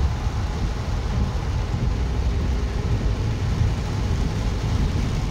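Steady noise inside a car driving through heavy rain: a low engine and road rumble with a hiss of rain and wet tyres on the road.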